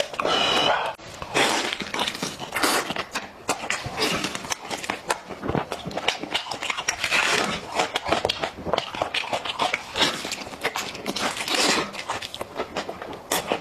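Close-up eating sounds of a man chewing boiled chicken: wet chewing and mouth smacking with many irregular small clicks and short noisy bursts.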